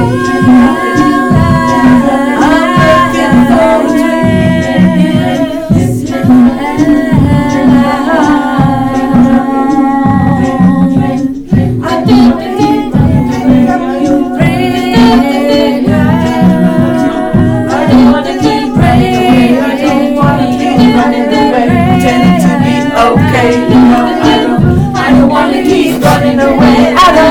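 A recorded song playing: singing over a steady beat and a held low note.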